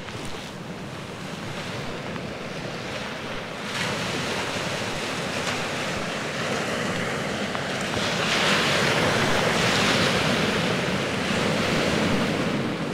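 Sea waves breaking and washing up the shore, with wind buffeting the microphone. The surf swells louder about four seconds in and again around eight seconds.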